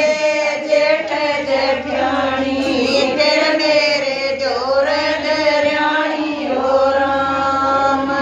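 Several women's voices singing a Haryanvi devotional folk bhajan together, drawing the words out into long held and sliding notes.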